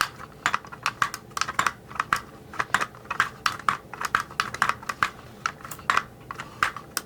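Rapid, irregular plastic clicking, about three clicks a second, as the 1984 G.I. Joe Cobra Rattler toy's landing gear is worked up and down on its freshly freed, oiled pivot pin.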